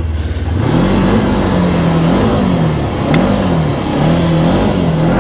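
Polaris RZR 900 side-by-side engine revving up and down again and again under throttle, as the machine sits stuck in deep snow with its tires spinning.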